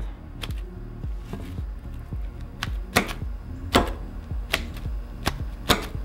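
A fork poking holes in plastic wrap stretched tight over a glass dish: about eight sharp, irregular pops and taps as the tines punch through the wrap.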